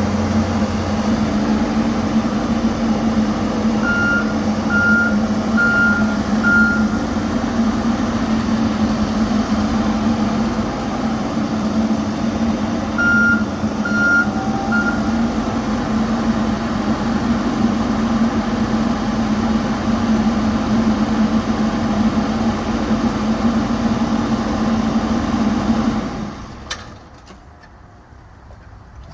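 The diesel engine of a 2013 Case 590 Super N backhoe loader runs steadily while the machine is operated. Its reversing alarm beeps four times about 4 seconds in and three times about 13 seconds in. The engine sound cuts away sharply near the end.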